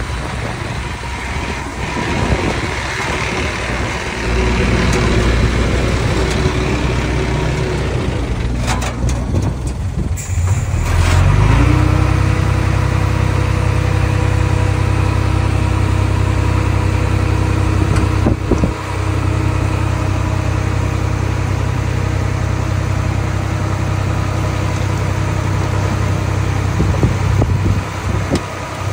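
Diesel engine of a mini bulldozer running, with a few sharp knocks, then rising in pitch and loudness about eleven seconds in and holding steady at higher revs.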